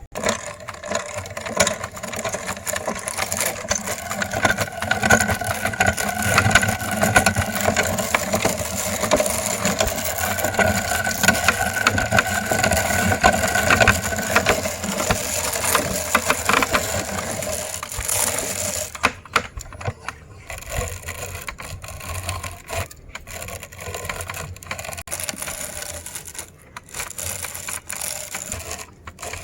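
Meat grinder machine grinding noodles: a dense crackle of crunching over a steady motor hum, thinning out to scattered crunches with short gaps about two-thirds of the way through.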